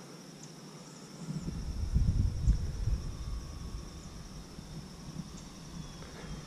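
Wind buffeting the microphone in a low rumble that swells about a second in, peaks and dies away again, over a steady high chirring of insects.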